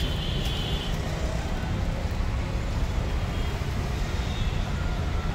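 Steady rumble of road traffic. A high, steady tone stops about a second in.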